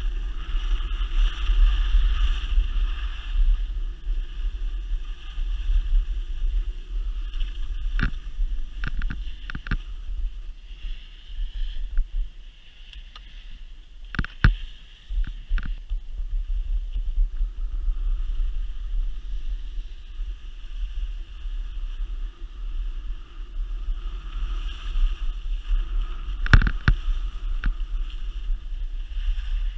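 Rushing wind buffeting an action camera's microphone during a downhill ski run, with the hiss and scrape of skis on snow. Sharp knocks come in a cluster about eight to ten seconds in, again around fourteen to fifteen seconds, and the loudest one near the end.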